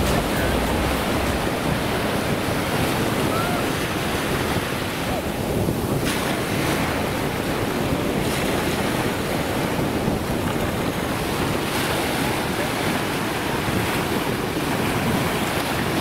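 Small sea waves breaking and washing up a sandy shore in a steady surf wash, with strong wind buffeting the microphone.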